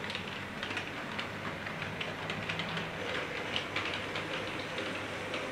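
Model railway train running along the layout track: a steady low hum with a constant patter of small clicks as the wheels run over the rail joints.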